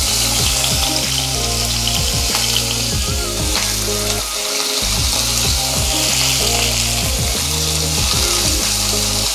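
Cubes of raw chicken breast sizzling in hot olive oil in a nonstick frying pan, stirred with a wooden spatula. Background music plays throughout.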